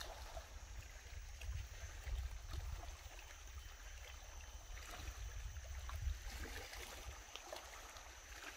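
Faint shoreline ambience: calm sea water lapping and trickling over a pebbly, rocky shore, with an uneven low wind rumble on the microphone and a thin steady high-pitched tone.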